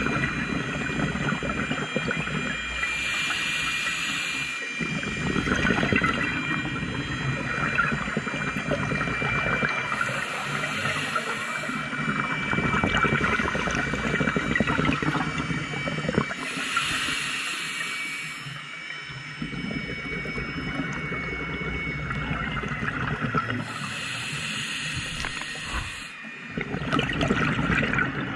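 Scuba regulator breathing underwater: a hiss of inhaled air through the demand valve about every six to seven seconds, with the low rumble of exhaled bubbles in between.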